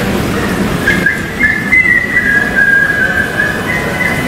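A high whistled tune of short held notes stepping up and down between two or three pitches, starting about a second in, over steady background noise.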